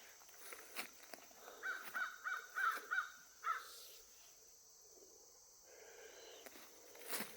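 Crow cawing, a quick run of about six caws over two seconds, with a fainter call a couple of seconds later.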